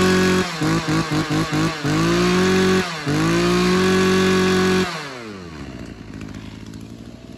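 Two-stroke engine of a Mitsubishi TBE27 brush cutter on a test run, revved hard: held at full throttle, with a quick run of about six throttle blips about half a second in and a brief dip near three seconds. About five seconds in the throttle is released and the revs fall away to a low idle.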